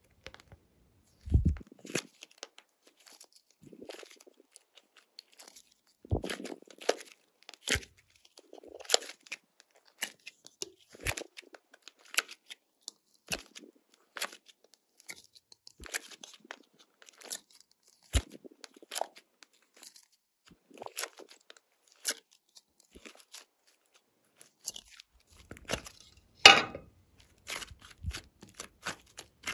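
Glossy slime being worked by hand: irregular sticky clicks and pops, with one louder crackle near the end.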